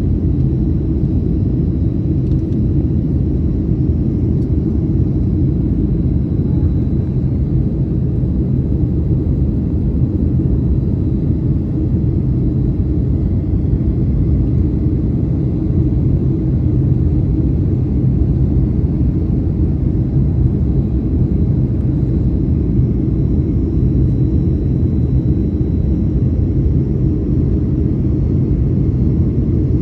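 Steady low cabin drone inside a Boeing 737 airliner in flight: engine and airflow noise heard from a passenger seat, holding an even level throughout.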